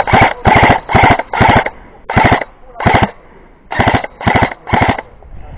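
Airsoft electric gun firing on full auto: about nine short bursts of rapid shots, each a fraction of a second long, with a brief pause about three seconds in.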